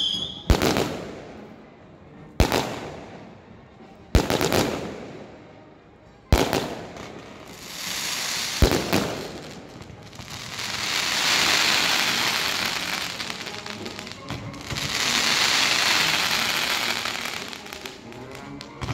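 Fireworks going off: five loud bangs about two seconds apart, each with an echoing tail. In the second half two long swells of hiss follow as spark-trailing rockets climb.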